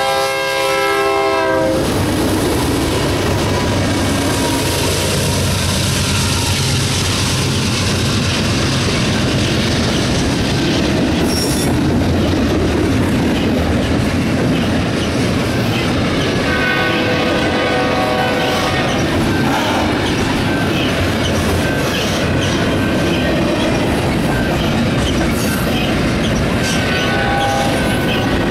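Horn of the lead BNSF GE C44-9W (Dash 9) locomotive, cutting off about a second and a half in, then the two GE diesels running past at speed. After them comes the steady rumble and clickety-clack of double-stack container well cars rolling over the rails, with a wheel squeal coming and going in the second half.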